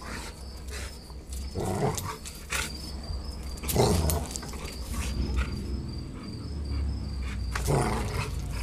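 A Cane Corso and a bulldog playing close together, with a few short dog noises about two, four and eight seconds in. Insects chirp steadily throughout.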